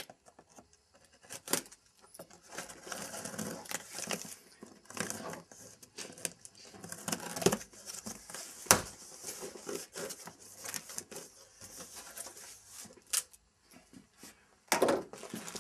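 A cardboard shipping box being opened by hand: packing tape peeled and torn off and the flaps pulled open, with irregular rustling and scraping of cardboard and a few sharp snaps.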